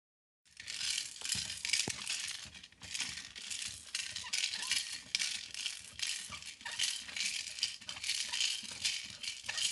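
A dense, hissy shaking rattle that pulses a few times a second, like a shaker, starting abruptly about half a second in.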